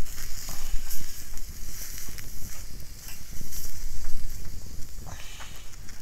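Steak sizzling on the grate of a folding wood-burning stove over a wood fire, with scattered sharp crackles and a low wind rumble on the microphone.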